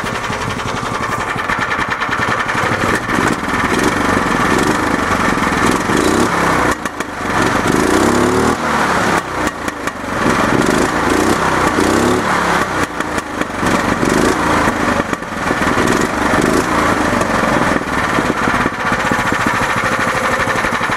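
Exhaust of a single-cylinder Honda GX engine swapped into a Club Car golf cart, governor bypassed, running and revved up and back down several times in the middle, popping as it comes off the throttle.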